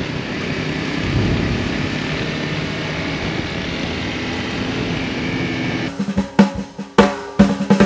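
A steady rushing noise for about six seconds, then it cuts off into drum-kit music with sharp snare and bass-drum hits.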